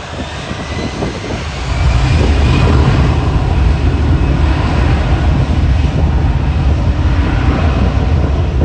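Airliner engines passing close by at the runway: a loud, deep rumble that swells about two seconds in and stays loud, with a faint engine whine above it.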